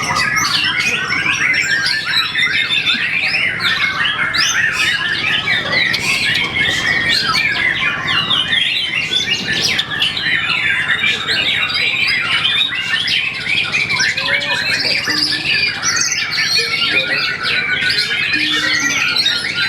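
Songbird singing a long, unbroken, rapid song of varied chirps, trills and whistles that slide up and down in pitch, packed with mimicked calls of other birds.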